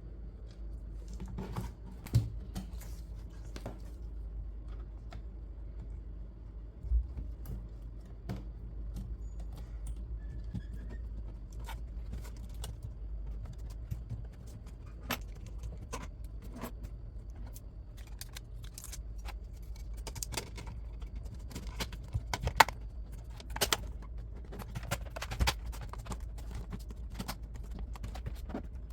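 Scattered small clicks and taps as plastic and metal laptop parts are handled and fitted during a screen replacement, a few sharper knocks among them, over a steady low hum.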